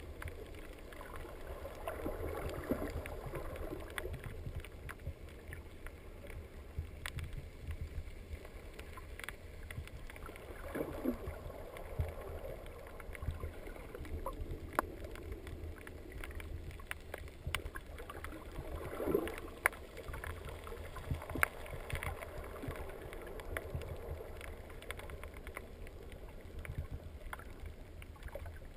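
Underwater sound picked up through a GoPro's sealed waterproof housing: a steady low rumble with a few brief swells of watery noise and scattered sharp clicks.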